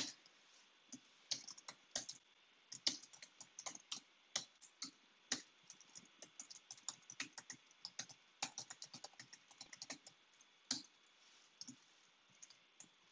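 Computer keyboard typing: irregular runs of quick keystrokes, thinning out near the end.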